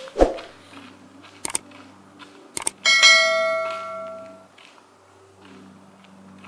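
Subscribe-button animation sound effects: a thump at the start, two short clicks, then a bright bell chime about three seconds in that rings out for about a second and a half.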